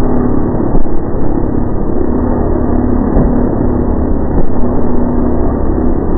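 Motorcycle engine running at a steady, even pitch.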